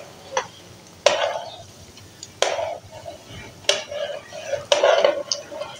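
A slotted spoon stirring ghee in a frying pan, knocking sharply against the pan about five times, each knock ringing briefly. Under it, the gulab jamun balls sizzle faintly as they fry in the ghee.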